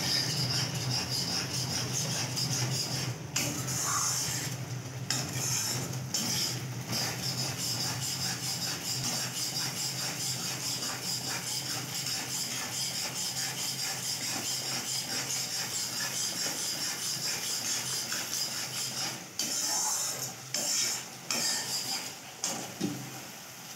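A spatula stirs and scrapes thick masala gravy around a kadai with many small rapid scrapes, over a steady frying sizzle. The stirring breaks into short stops and starts near the end.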